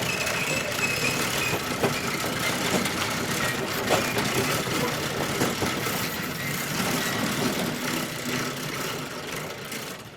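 Corrugated metal door moving, a continuous metallic rattle and rumble scattered with small knocks, easing slightly near the end.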